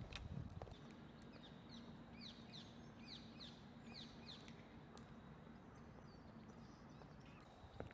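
Quiet park ambience with a small bird giving a quick run of about eight down-slurred chirps a couple of seconds in, over a faint steady low hum. A few faint footsteps on a paved path near the start and the end.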